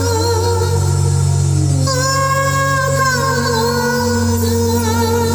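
A song with singing and heavy, sustained bass, played loud through a DJ sound system during a sound check.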